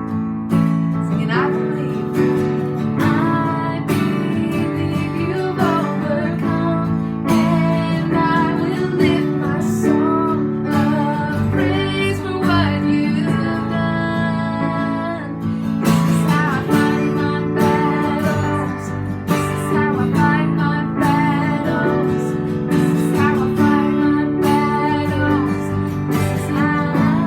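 Music: strummed acoustic guitar chords with a voice singing a melody over them.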